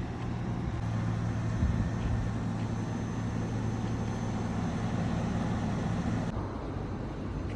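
A vehicle engine idling: a steady low hum that changes abruptly near the end.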